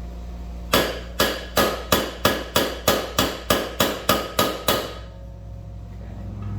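A hammer strikes a steel socket about thirteen times, roughly three blows a second, each with a short metallic ring. The socket is being used as a driver to seat a new wheel bearing into a motorcycle's aluminium front wheel hub.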